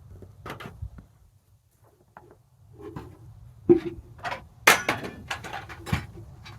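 A string of sharp, irregular knocks and clatters, sparse at first and coming thick and loud in the second half, over a low hum that drops out for a second or so near the start.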